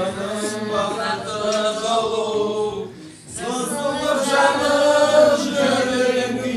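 Several voices singing a Kazakh song together, holding long notes, with a brief break about three seconds in before the singing resumes.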